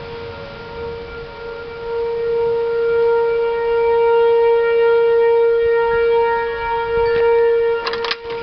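Outdoor tornado warning siren sounding a steady tone with a stack of overtones, swelling louder about two seconds in. It is sounding a tornado warning.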